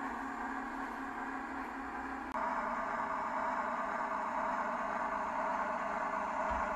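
Heljan AEC railcar model's sound decoder playing a diesel railcar engine running through the model's small speaker, a steady hum that changes in tone about two and a half seconds in.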